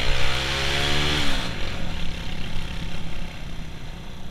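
Suzuki Intruder 125's single-cylinder engine accelerating with rising pitch, then dropping sharply about a second in as the throttle closes or a gear changes, and running on at lower revs. Wind hiss on the microphone fades as the revs drop.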